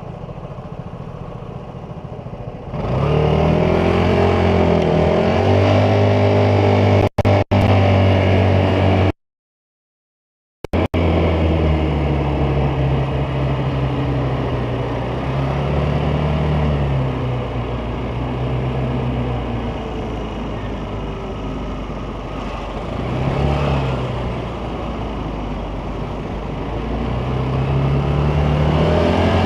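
Vespa GTS 300 scooter's single-cylinder four-stroke engine while riding, its pitch rising and falling as the throttle opens and closes. It is quieter at first and pulls away strongly about three seconds in. The sound drops out briefly twice and then cuts to silence for about a second and a half near the middle.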